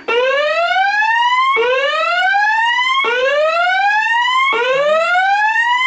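Fire alarm voice-evacuation speaker sounding its whoop evacuation tone: four rising sweeps, each about a second and a half long, climbing in pitch and restarting at the bottom. This is the signal that the recorded evacuation message refers to.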